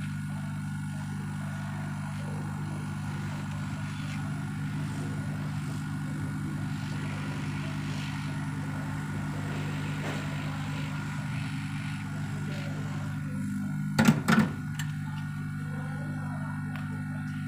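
A steady low electrical hum, with two sharp knocks in quick succession about fourteen seconds in.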